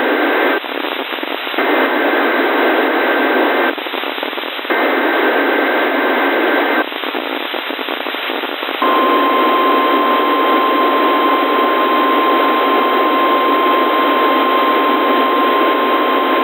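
NOAA Weather Radio emergency alert heard through radio static. It opens with the tail of one SAME header data burst and two more, each a two-tone digital squawk about two seconds long with a second's gap between them. About nine seconds in, the steady 1050 Hz warning alarm tone starts and holds, marking the start of a Severe Thunderstorm Watch alert.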